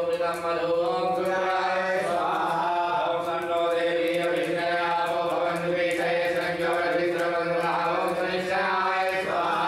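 Men chanting Sanskrit Vedic mantras for a havan fire ritual, a continuous droning recitation held on a steady pitch with slight rises and falls.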